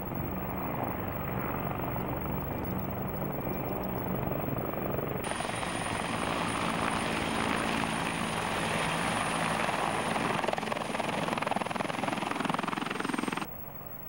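Bell CH-146 Griffon twin-turbine helicopter flying low with a steady rotor beat. About five seconds in the sound jumps to a much louder close pass with a high turbine whine, which dips slightly in pitch just before an abrupt cut to quieter, more distant helicopter noise.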